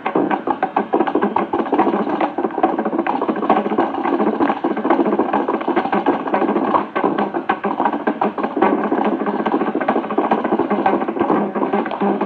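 Carnatic concert music dominated by a mridangam playing a fast, dense run of strokes, heard through an old radio-broadcast recording.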